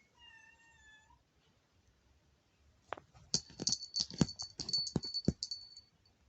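A cat meows once, for about a second. About three seconds in, a small jingle bell toy rattles in quick clicking jingles for nearly three seconds as the cat bats it about.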